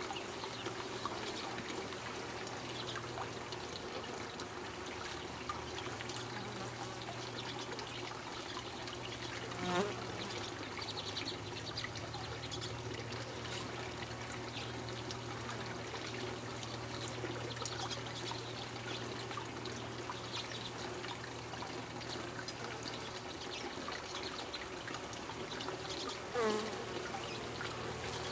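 Honeybees buzzing at the hive entrance, a steady hum. Twice, about ten seconds in and near the end, a single bee flies close past the microphone, giving a short, louder buzz that swoops in pitch.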